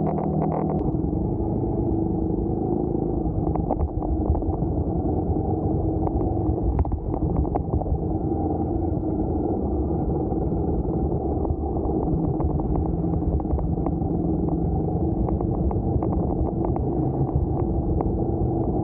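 Motorcycle engine running steadily while riding, with frequent short knocks and rattles throughout.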